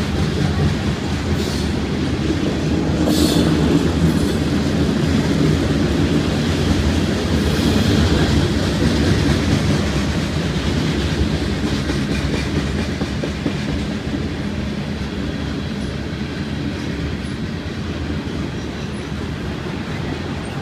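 Freight train cars rolling past: a steady rumble of wheels on the rails. A few brief high-pitched metallic squeals come in the first few seconds.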